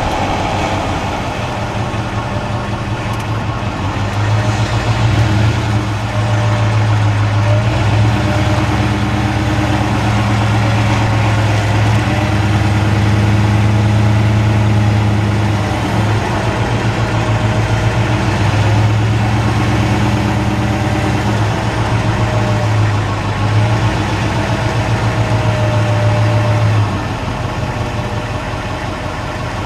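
Ford Explorer's 4.6L V8 engine and exhaust running while driving, with tyre and road noise, heard from a camera mounted under the frame. The low drone holds a steady pitch, easing off briefly a few times.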